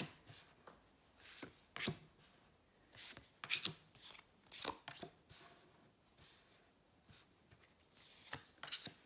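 Tarot cards being dealt from a deck in hand onto a wooden tabletop: irregular light taps and slaps, several in quick clusters, as each card is set down.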